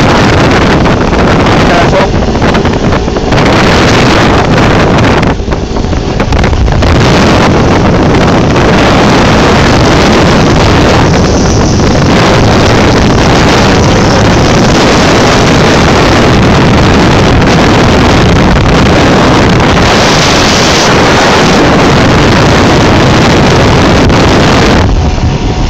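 Speedboat running under way at speed, loud and steady, with heavy wind rushing over the microphone in the open cockpit; the noise drops briefly twice in the first few seconds.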